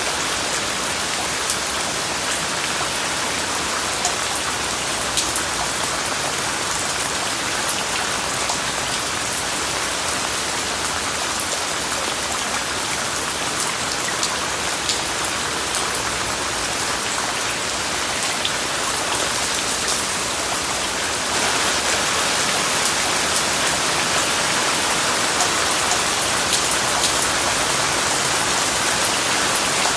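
Steady rain falling, an even hiss with scattered sharp drop ticks. The hiss steps up a little about two-thirds of the way through.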